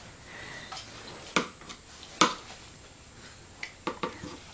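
A handful of light clicks and taps during spoon-feeding of a baby in a high chair: the two loudest about a second apart near the middle, then three quick ones close together near the end.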